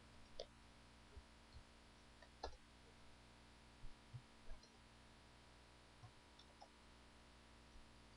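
Faint, irregular computer clicks, about ten spread over eight seconds, above a low steady electrical hum.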